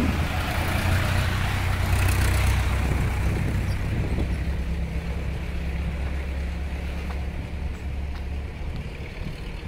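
Diesel engines of light trucks running close by: a low, steady drone that fades gradually as a truck pulls away.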